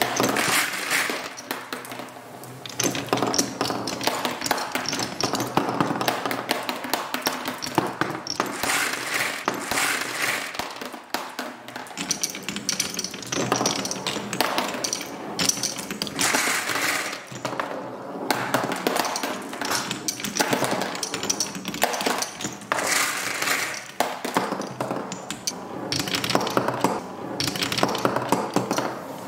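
Marbles rolling and clattering down a Hape Quadrilla wooden marble run: a constant rolling rattle on the wooden tracks, dotted with many small clicks and clinks as the marbles drop through the pieces and knock together.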